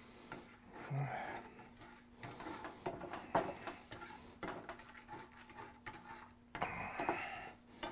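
A slotted spatula scraping and tapping around a stainless steel frying pan as a thin sauce is stirred in it, in small irregular clicks and scrapes.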